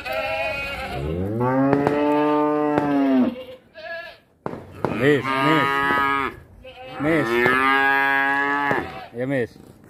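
Cattle mooing: three long, loud moos, the first rising in pitch as it starts, the second about five seconds in and the third about seven seconds in.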